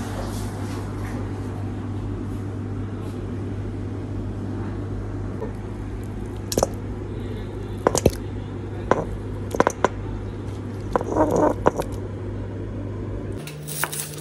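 Raw chicken pieces dropped by hand into a stainless steel bowl: a series of short wet slaps and knocks against the metal from about six seconds in, some in quick clusters, over a steady low hum.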